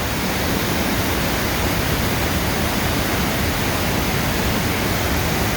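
Steady rush of floodwater pouring over a waterfall, the river running very high after storms.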